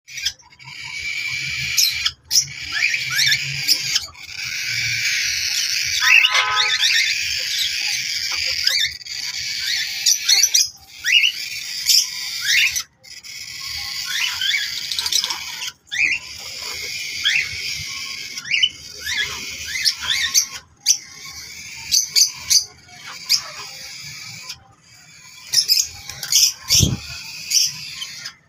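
A group of pet parrots (Alexandrine, ringneck, cockatiels and lovebirds) chattering and screeching, a dense run of shrill chirps and quick rising and falling calls, broken by a few brief gaps. A single deep falling swoop sounds just before the end.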